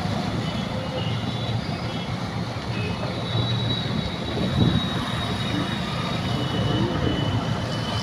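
Steady street traffic noise: motorcycle and other vehicle engines running on a waterlogged road, a continuous low rumble.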